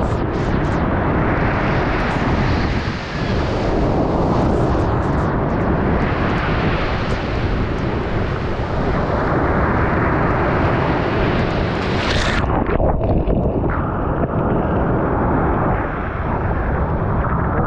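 Sea waves breaking and dragging back over a pebble beach: a loud, continuous rush of surf with a hissing wash of shingle over a heavy low rumble. About twelve seconds in, the high hiss drops away abruptly.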